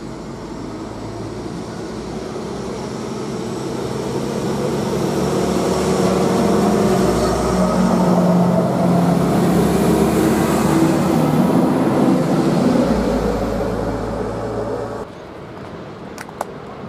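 A train passing, growing louder to a peak about halfway through and then fading, with a steady hum of running gear under it; it cuts off suddenly near the end, after which a couple of sharp clicks are heard.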